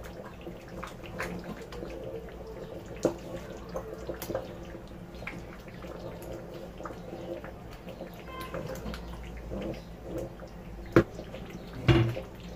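Thick tomato stew bubbling and popping in a pot while a spoon stirs it, over a steady low hum. Two sharp knocks near the end: the utensil striking the pot.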